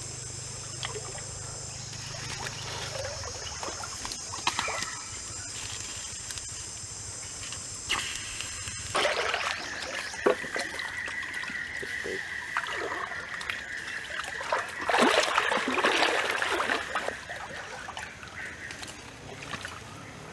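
Stream water trickling, with steady high-pitched calls over it that give way abruptly about halfway through to a lower, pulsing trill, which fades near the end. A few sharp clicks are scattered throughout.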